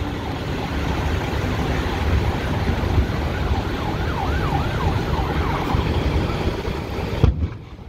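Fire truck siren yelping, its pitch rising and falling quickly a few times a second for a couple of seconds midway, over a steady low rumble. A knock near the end, after which everything goes quieter.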